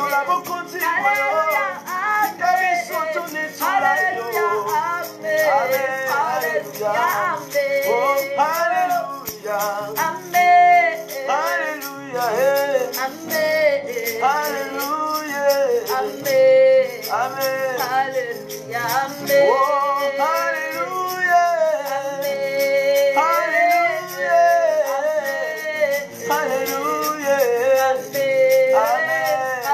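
A man and a woman singing a worship song together over a strummed acoustic guitar, with a hand-held shaker rattling in a steady rhythm.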